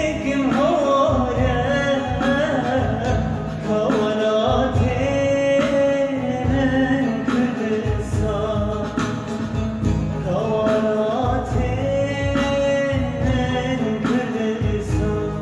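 A song: a man singing over instrumental backing with a steady beat.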